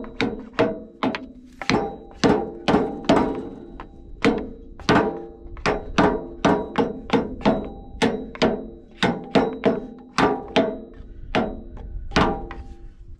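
Hammer blows on a drift, driving a bearing race into the jack shaft bearing housing of a Lufkin pumping-unit gearbox. A steady run of sharp, ringing metal strikes, two to three a second, with a brief pause about three and a half seconds in.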